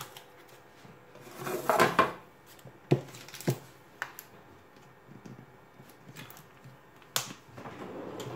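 Metal springform cake pan holding a baked apple cake set down on the counter and shifted into place, with a scraping rustle about two seconds in, then a few sharp light knocks.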